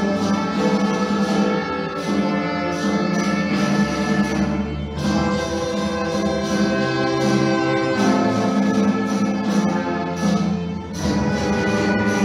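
Student orchestra of violins, cellos and double basses playing live, held chords that change about every three seconds over a steady low bass.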